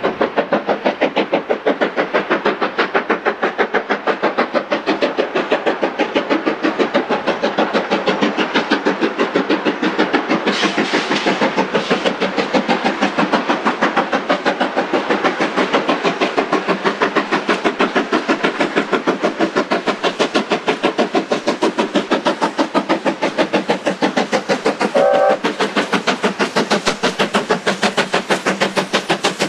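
Steam locomotives working hard up a gradient: rapid, steady exhaust chuffing, with a brief burst of hiss partway through and a short whistle toot near the end.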